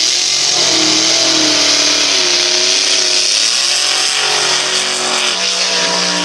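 Vintage drag car's engine revved hard up and down several times at the starting line during a burnout, over a loud steady rushing hiss.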